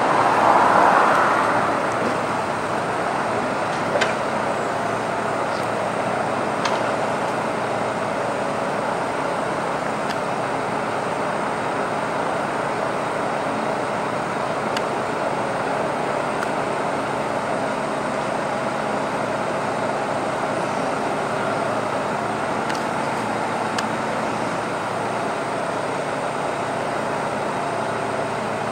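Engine of a work truck running steadily, with a louder swell about a second in and a few faint clicks.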